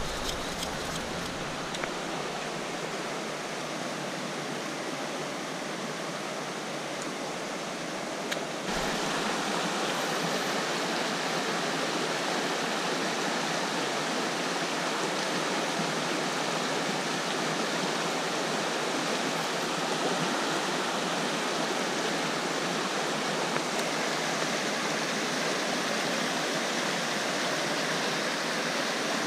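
River water rushing steadily over its bed, a constant wash of noise that steps up in level about nine seconds in.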